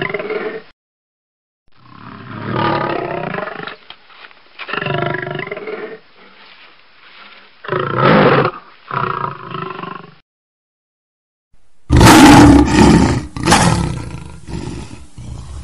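Lion roaring: a series of deep roars with short pauses between them. About twelve seconds in, a louder roar cuts in suddenly and then fades away.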